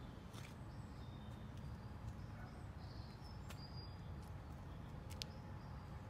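Short, faint bird chirps over a low, steady outdoor rumble, with a few sharp clicks, the clearest about five seconds in.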